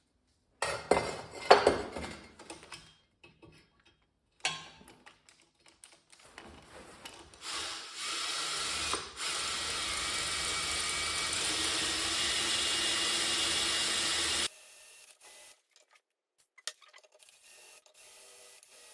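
Electric drill boring a hole for a tapped thread, running steadily for about seven seconds and stopping abruptly. Knocks and clatter of parts being handled come before it.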